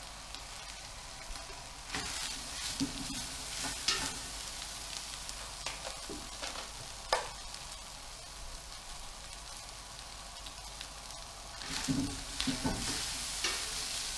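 Diced Jagdwurst and bacon sizzling as they fry in a large stainless steel pot, browning and starting to catch on the bottom. A spatula scrapes and clicks against the pot a few times, busier near the end.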